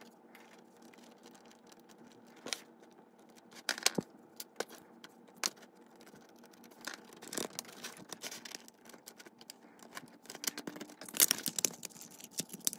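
Small sharp clicks, taps and light scrapes of the plastic chassis and shell of a model locomotive being handled on a workbench, scattered through, with a denser run of clicks near the end, over a faint steady hum.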